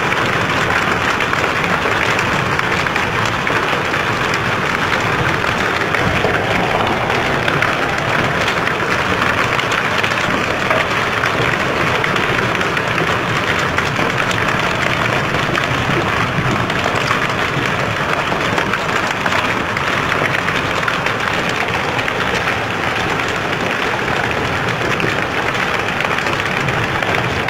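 Heavy hail mixed with rain pelting concrete and pooled water: a dense, steady hiss of countless small impacts.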